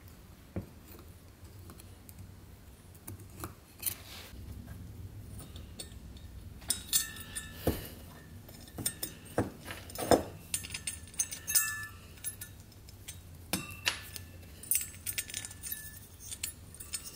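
Irregular light metallic clicks, clinks and short scrapes of a small hand tool trimming material out of an aluminium heat sink being made into a cylinder head. Some strikes ring briefly. The sounds come more often after the first few seconds.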